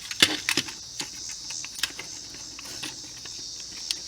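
Light sharp clicks and taps of hard plastic switch parts being handled and fitted, two of them loudest close together early on, over a steady high-pitched chirring in the background.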